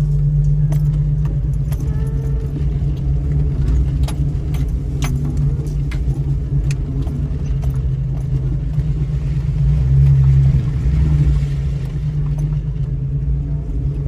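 A lifted 2000 Jeep Cherokee driving on a graded gravel road, heard from inside the cab: a steady engine and road drone with scattered light rattles and clicks. The drone swells briefly about ten seconds in.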